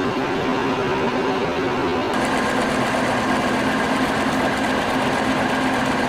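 Milling machine taking a heavy cut in a metal block with a 2-inch three-flute cobalt roughing end mill: a steady machining hum with a low whine. About two seconds in the sound turns brighter, with a higher steady whine added.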